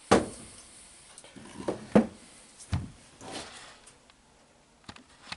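Metal alternator parts handled and set down on a wooden workbench: a sharp knock at the start, then a few softer knocks and clicks.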